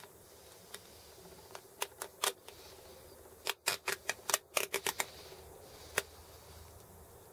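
Small steel parts and an open-end spanner clicking and tapping against a Sturmey-Archer S5C hub's axle as the nuts and washers are fitted by hand. A few single clicks, then a quick run of about eight in the middle, and one more near the end.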